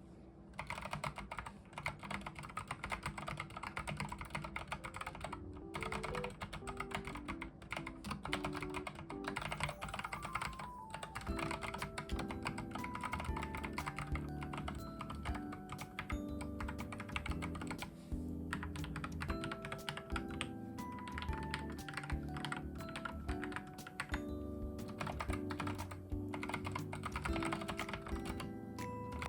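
Mechanical keyboard being typed on in a fast, continuous clatter of keystrokes, starting about half a second in, over background music.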